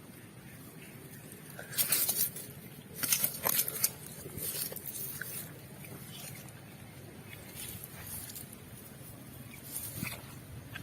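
Water splashing and sloshing in short bursts, around two seconds in and again at three to four seconds, with quieter splashes later, as hands work through shallow water.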